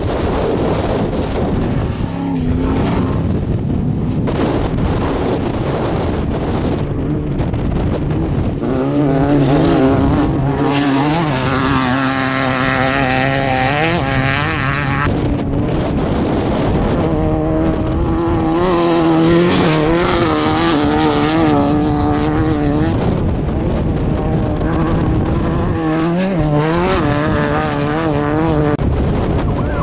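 Off-road race buggies and a race truck passing at speed on a dirt course, their engines revving up and down as they go.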